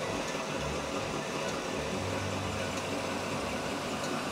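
Vintage Buick convertible's engine idling with a steady low rumble.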